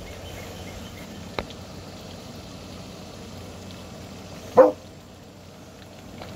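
American bully puppy giving a single short bark about four and a half seconds in, over a steady low outdoor hiss. A short sharp click comes about a second and a half in.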